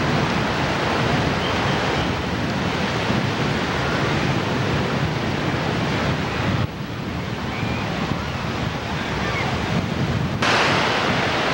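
Ocean surf washing in at the shoreline, with wind buffeting the camcorder microphone: a steady rushing noise that shifts abruptly in level at tape edits about two, seven and ten and a half seconds in.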